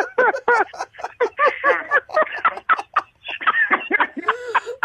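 A man laughing into a stage microphone in rapid, short, high-pitched giggles instead of speaking his line: the performer corpsing, breaking up with laughter in character.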